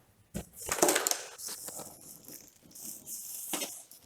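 Packaging being handled: plastic and cardboard rustling and crinkling, with a few sharp clicks and knocks.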